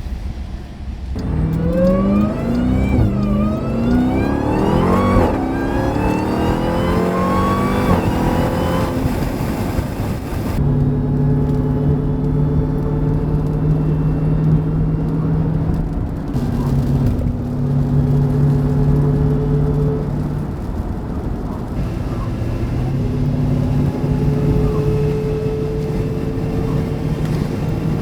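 Jeep Grand Cherokee Trackhawk's supercharged 6.2-litre Hemi V8 accelerating hard through several gears, its pitch and a high supercharger whine rising with each gear and dropping at each shift. After about ten seconds it settles into a steady drone at cruising speed, changing pitch now and then.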